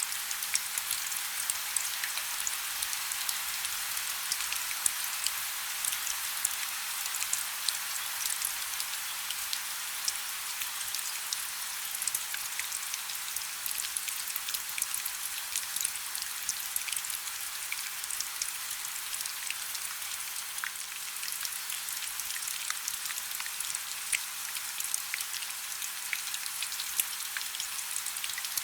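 Rain falling steadily: an even hiss with many small drop taps.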